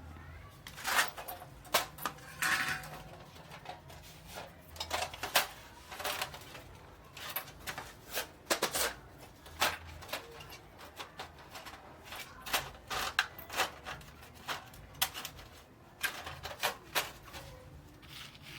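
Irregular clicks, taps and light scrapes of small hard parts being handled and fitted by hand, over a faint low hum.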